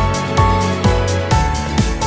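Background music with a steady electronic beat, about two drum hits a second, under held melodic notes.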